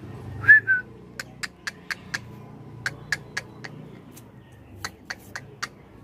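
Two short whistled notes about half a second in, the loudest sound, followed by three quick runs of sharp clicks, four or five at a time, about four a second.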